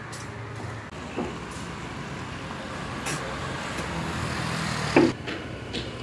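Motor vehicle running along the street below, a steady engine rumble with tyre noise that slowly grows louder, then falls away after a sharp knock about five seconds in.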